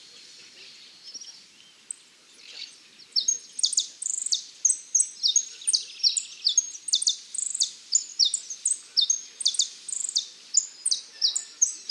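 A caged contest songbird singing: after a quiet start, from about three seconds in, a long run of sharp, high, downward-sweeping notes repeated about three times a second.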